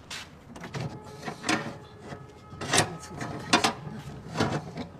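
A series of irregular sharp knocks and taps, about one or two a second, like clatter from handling things or footsteps.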